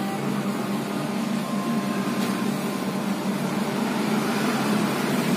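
Steady mechanical hum, even and unchanging.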